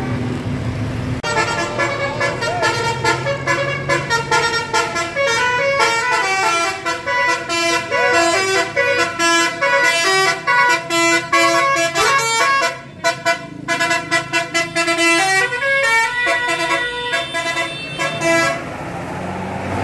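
Telolet bus horn, a multi-trumpet musical horn, playing a fast tune of quickly changing notes. It starts about a second in and stops shortly before the end, leaving traffic noise.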